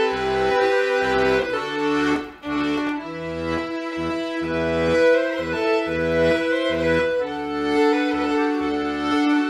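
Fiddle and melodeon playing a traditional English folk tune together, the melodeon's bass buttons pumping an even rhythm under the melody. The music dips briefly about two seconds in.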